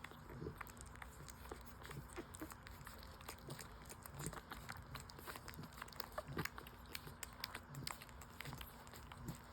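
Five-day-old French Bulldog puppies nursing, making faint wet suckling and smacking sounds: many quick irregular clicks.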